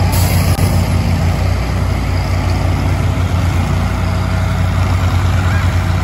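Heavy GMC grapple truck's engine running steadily as the truck pulls slowly away, with a deep, even hum.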